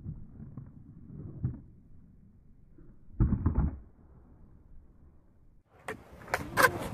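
Skateboard on concrete: a low rumbling grind along a concrete ledge with a thump, then a loud clatter about three seconds in. Near the end come several sharp, close clacks of the board.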